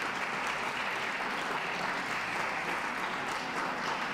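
Ringside crowd applauding steadily, clapping in support of the dogs as they are moved round the show ring.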